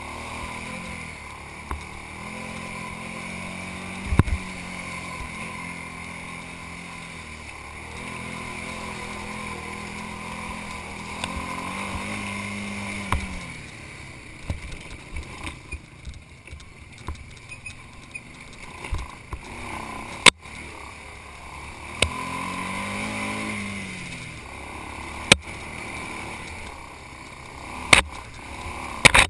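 ATV engine running along a rough dirt trail, pulling steadily, then easing off for several seconds about halfway and revving up and down again. Sharp knocks and rattles from the bumpy ride and brush striking the machine come through over it, the loudest in the second half.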